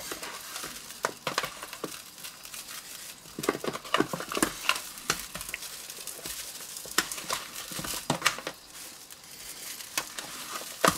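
Hands kneading a dry spice rub into raw chicken drumsticks in a plastic tub: irregular soft squelching rustles and small clicks, with the crinkle of a paper spice pouch.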